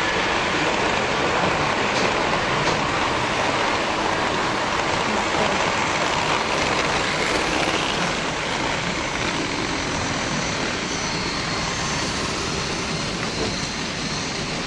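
OO gauge model trains running past close by, a steady rumbling running noise from their wheels and motors on the track that eases slightly over the last few seconds.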